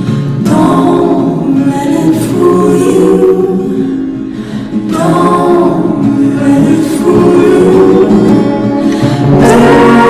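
Background music with singing: sung vocal lines over a guitar accompaniment, dipping briefly in the middle and swelling fuller near the end.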